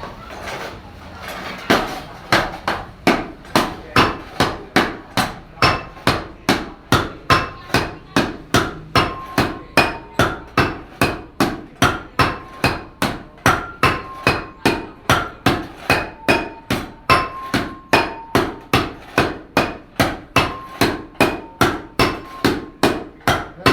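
Steady hand-hammering on the metal of a gong being made, about two blows a second, beginning about two seconds in. Each blow leaves a short ringing tone whose pitch shifts slightly from blow to blow.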